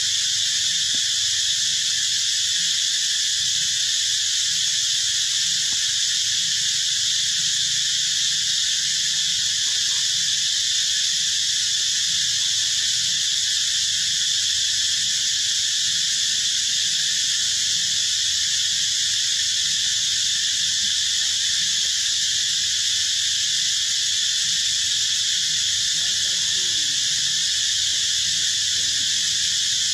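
Steady, unbroken high-pitched insect chorus that keeps an even level throughout.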